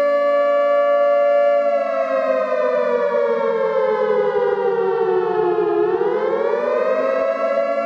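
Civil defense siren sounding a steady tone that, about two seconds in, slides slowly down in pitch, bottoms out around six seconds, then rises back to its steady pitch near the end.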